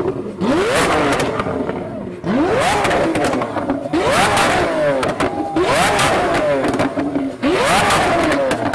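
Lamborghini Aventador S's V12 through a Fi Exhaust valvetronic cat-back exhaust, revved in about five sharp blips. Each one climbs quickly and falls away, with cracks and pops on the overrun as the exhaust spits flames.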